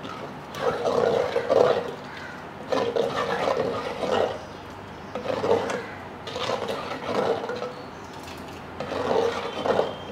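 Wooden spoon stirring thick rice gruel in an earthenware pot, scraping around the inside in five or six rhythmic strokes.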